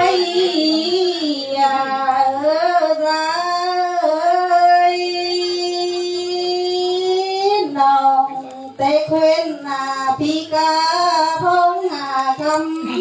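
A single high voice singing a lượn, a Tày folk song, in wavering, ornamented phrases, with one long held note from about four seconds in to nearly eight, then shorter phrases.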